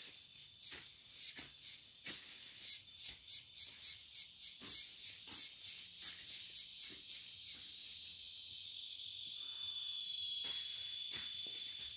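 Insects calling: a high, rapid pulsing chirp, about three pulses a second, then a steady high buzz that sets in past the middle and grows louder near the end.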